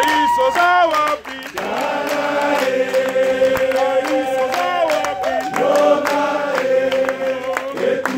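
A crowd of people singing together, their voices holding long, drawn-out notes.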